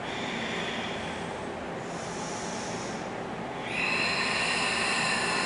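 Slow, deep breathing during a held yoga pose, as rounds of breath: three breath sounds, a soft one at the start, a higher, thinner one about two seconds in, and a louder, longer one starting a little past halfway.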